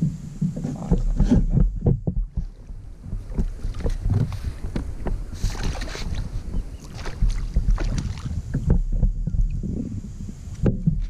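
Wind buffeting the microphone over knocks and bumps against a plastic fishing kayak as a fish is netted, with a splash about five and a half seconds in as the fish thrashes at the surface by the landing net.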